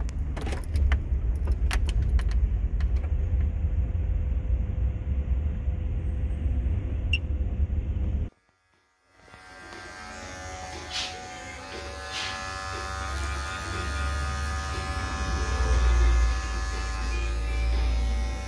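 Low rumble of a car running, with a few clicks near the start. About eight seconds in the sound cuts off briefly. Then comes the steady buzz of electric hair clippers, with a low rumble under it.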